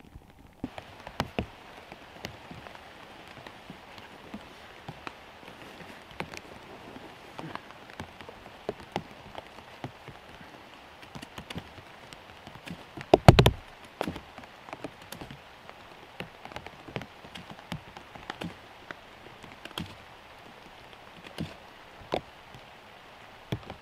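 Steady rain falling, with many separate drops ticking sharply over an even hiss, starting about half a second in. About 13 seconds in comes one much louder dull thump.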